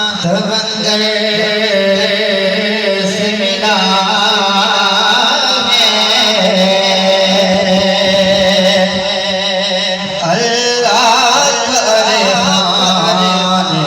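South Asian-style music: a winding, ornamented melody over a steady low drone.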